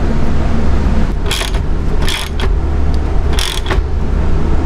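Ratchet wrench clicking in three short runs about a second apart as its socket turns the terminal bolt on a heavy-cable DC circuit breaker, over a steady low hum.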